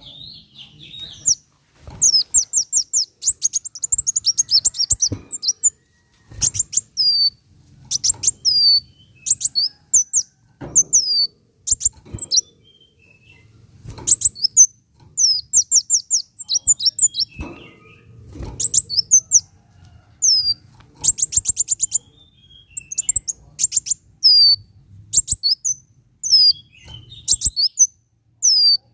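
Kolibri wulung sunbird singing: quick high-pitched chips, many falling in pitch, and short very fast trills, coming in bursts every second or two.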